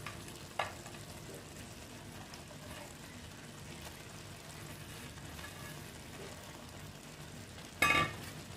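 Shredded cabbage and fried fish head cooking in a steel kadai, a faint steady sizzle. A short click comes about half a second in, and a brief louder clatter near the end.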